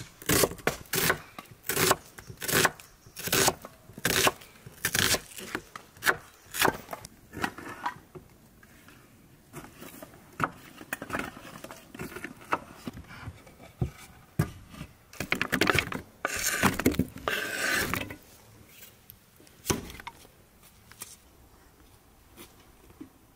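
Chef's knife slicing a red onion on a wooden chopping board, each stroke knocking on the wood, about two a second for the first several seconds. After that come scattered knocks and, past the middle, about two seconds of louder scraping.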